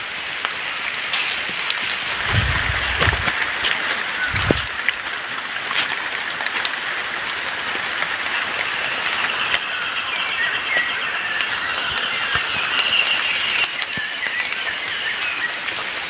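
Light rain falling on forest leaves, a steady hiss. Two low thumps come about two and a half and four and a half seconds in, and faint high chirping runs from about ten to fourteen seconds in.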